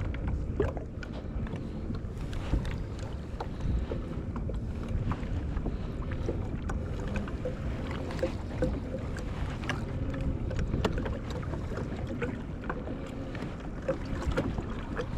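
Water lapping and slapping against the hull of a fishing kayak, with small irregular splashes and wind rumbling on the microphone.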